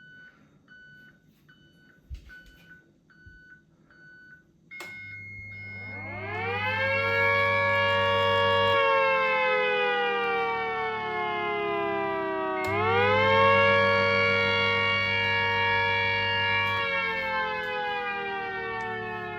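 About eight short electronic pips, one every half second or so. Then the siren cabinet's internal siren winds up and wails in a rising and falling warning tone, climbing twice and sinking slowly after each peak. A low hum sounds while it is powered.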